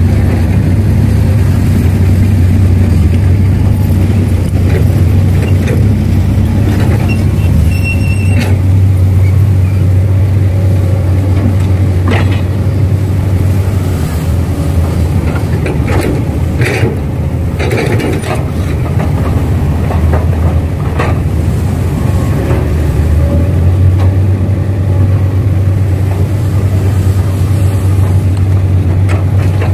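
Heavy diesel earthmoving machinery running steadily close by, with a strong low engine hum that eases off a little in the middle. Occasional sharp knocks and short squeals of metal are heard through the middle part.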